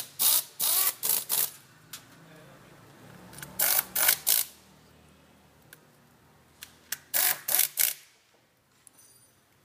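Impact wrench running bolts into the belt cover of a Honda Air Blade scooter, in short rattling bursts: four near the start, two about halfway, three near the end. The cover is being bolted back on after the drive belt was replaced.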